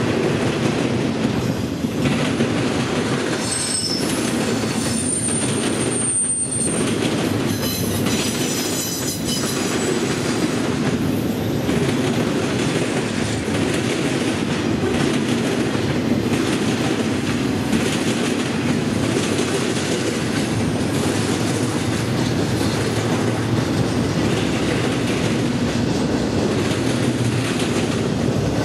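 Intermodal freight train of truck trailers and containers on flatcars rolling past, a steady rumble and clatter of steel wheels on the rails. High-pitched wheel squeals come in a few short stretches about 3 to 10 seconds in.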